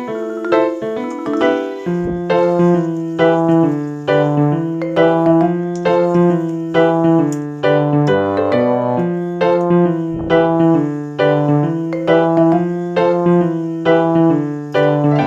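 Background piano music: a steady run of struck notes over held bass notes.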